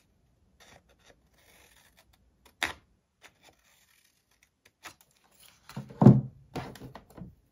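Craft scissors snipping small triangular notches out of scored white paper: faint crisp cuts, with one sharp snip about two and a half seconds in. Near the end come a few louder thumps and rustles as the paper is handled.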